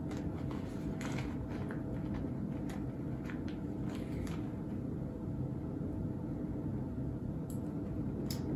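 Scattered light clicks and taps from small pieces of myrrh resin being picked up and handled, over a steady low room hum with a faint steady tone.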